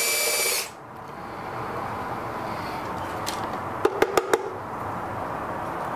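Cordless drill/driver running steadily with a motor whine as it backs out a Phillips screw from the grinder's base, stopping suddenly under a second in. About four seconds in, a quick run of sharp clicks and taps.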